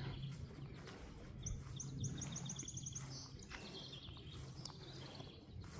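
A songbird singing a rapid series of high, clipped notes that speeds up and ends in a short buzz, about a second and a half in, followed by softer high chirps.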